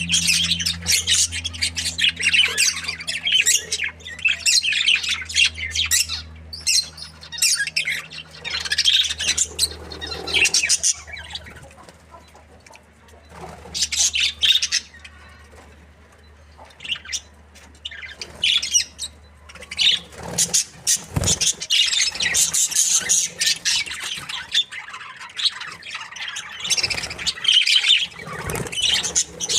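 Budgerigars chattering and chirping in rapid, continuous bursts, easing off briefly twice before picking up again. A low steady hum underneath stops about two-thirds of the way through.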